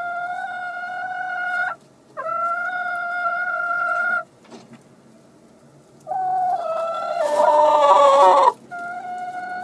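Hen in a straw nest box giving long, drawn-out calls of about two seconds each, with short pauses between, typical of a hen's nest-seeking call. The third call breaks into a louder, rougher squawk near the end.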